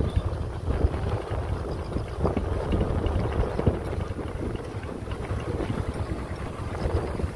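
A vehicle on the move, its running noise under a low rumble of wind buffeting the microphone.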